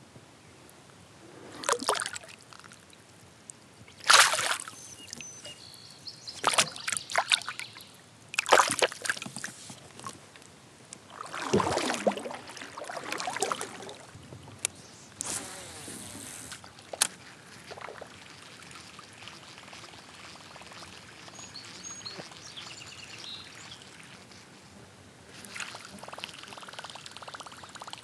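Lake water splashing and sloshing beside a kayak as a smallmouth bass is let go over the side, in a series of short splashes through the first half. It then goes quieter, with more soft water noise near the end.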